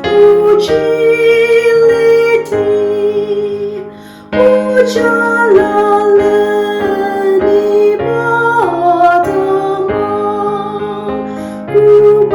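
Slow music on a keyboard with a woman singing the melody in long held notes; the music drops away briefly about four seconds in.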